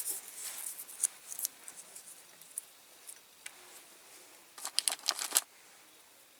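Thin masking tape being handled close up: short crackly rips and crinkles in the first second or so, and again about five seconds in.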